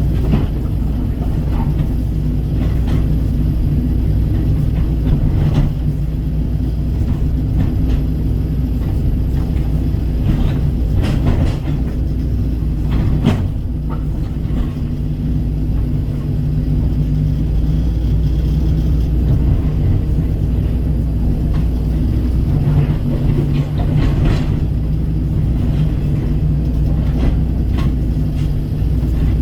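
Kobelco SK135 excavator's diesel engine running steadily under working load, with a few short knocks and scrapes, most of them near the middle.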